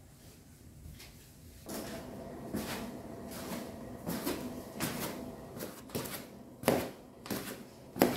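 Footsteps of someone in soft slippers walking down tiled stairs, one step slapping or knocking about every two-thirds of a second from about two seconds in, the last two the loudest.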